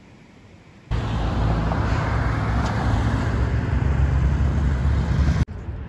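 Street traffic with a vehicle engine running close by, a steady low hum over road noise. It starts abruptly about a second in and cuts off abruptly near the end.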